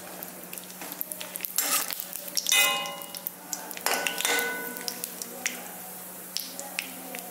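Cashew nuts sizzling as they fry in hot fat in a metal kadai, with a metal spatula scraping and clinking against the pan as they are stirred. The spatula strikes make the pan ring briefly about two and a half seconds in and again about four seconds in, the first being the loudest.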